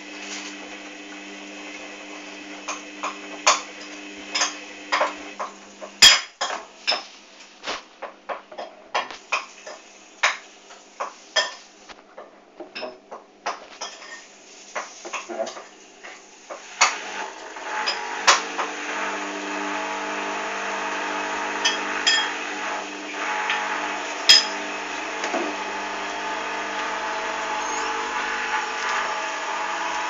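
Hoover Dynamic washing machine at the start of its final spin with a badly unbalanced load. The drum turns with a steady motor hum while the laundry knocks and clatters sharply against it. About halfway through, the motor speeds up into a louder, steady spinning noise with only an occasional knock.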